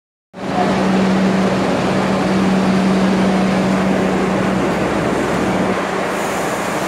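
R62A subway train pulling out of the station: a loud, steady wash of motor and wheel noise with a constant low hum that fades about four and a half seconds in. A higher hiss joins near the end.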